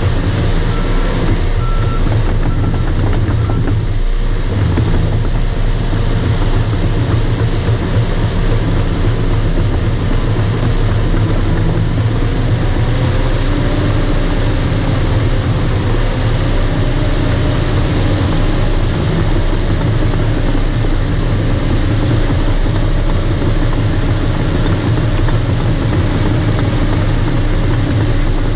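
Bulldozer's diesel engine running steadily while stripping topsoil. About a second in, a few short reverse-alarm beeps sound.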